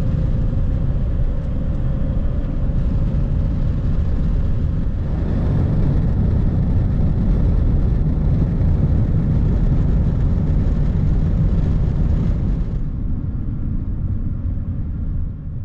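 A vehicle driving at highway speed: a steady, loud rumble of road and wind noise, with a faint steady hum in the first few seconds.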